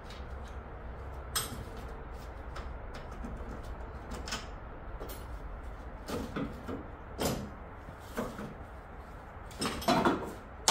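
Scattered metallic clinks and knocks of tools and parts against a car's front end and radiator support, with a few louder clanks in the second half, over a low steady hum.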